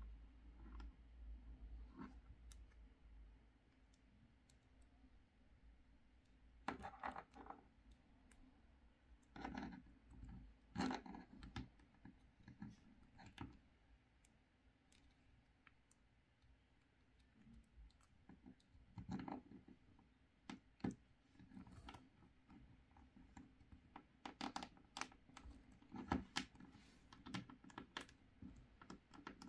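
Plastic action figure being handled and posed: faint clicks and scrapes of its joints and small plastic rifle in the fingers, coming in clusters with quiet stretches between.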